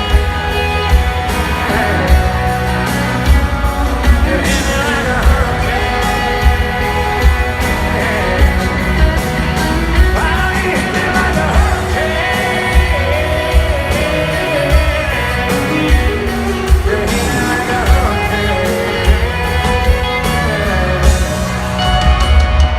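A live country band playing through a concert PA, with a male lead vocal singing over drums, bass and guitars.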